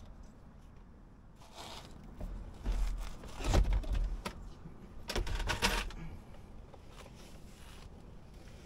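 Clicks, knocks and scrapes of hand tools and parts being handled while a car's steering column is taken apart, with two louder bursts of clatter a few seconds in.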